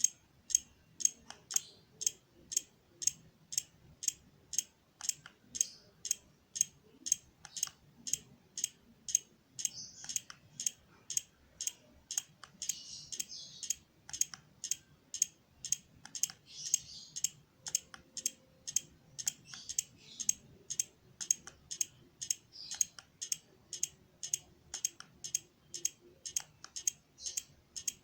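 Steady, even clicking, about two sharp clicks a second, with a few short bursts of hiss.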